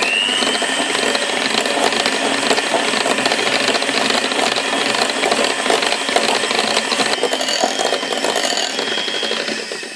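Electric hand mixer running at low speed, its wire beaters whirring through cake batter in a glass bowl with a dense, steady rattle. The motor whine rises as it gets up to speed at the start, and the sound drops away right at the end.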